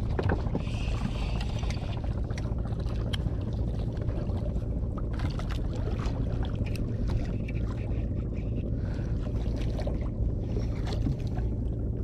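Steady low hum of a small fishing boat's engine running, with a few light clicks scattered through it.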